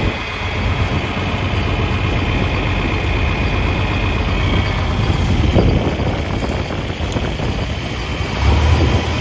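Vintage John Deere tractor engine running steadily in the field. A heavier low rumble comes in about eight and a half seconds in.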